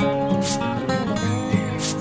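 Background music with a plucked acoustic guitar.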